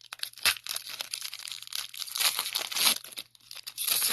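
A trading-card pack wrapper being torn open and crinkled by hand, in irregular crackling bursts with the loudest tearing about half a second in, around two to three seconds, and near the end.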